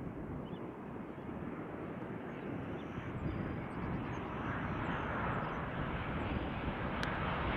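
Jet engines of a Boeing 737-700 airliner on final approach with gear down: a steady rushing engine noise that grows louder about four seconds in as the plane nears.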